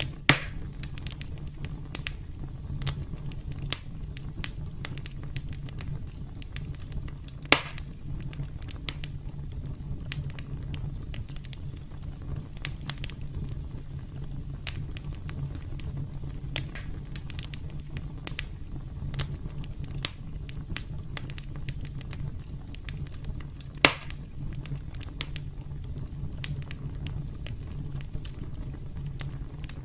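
Campfire crackling: a steady low rumble of burning wood with scattered sharp pops and snaps, three of them louder, one near the start, one about a quarter of the way in and one about four-fifths of the way in.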